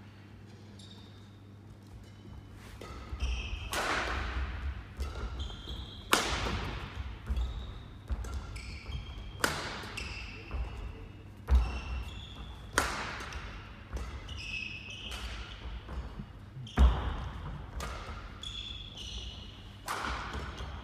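Badminton rackets striking a shuttlecock every second or few, each sharp hit ringing in a large hall, mixed with court shoes squeaking and feet thudding on the court mat. The hits begin about three seconds in.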